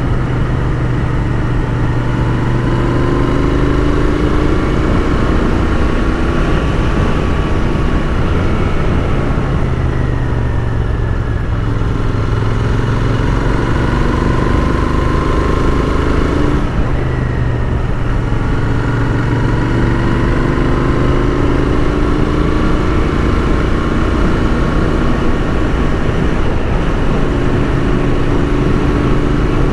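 Royal Enfield Continental GT 650's parallel-twin engine running under way, its pitch rising and falling with the throttle and dropping briefly twice, over steady wind rush.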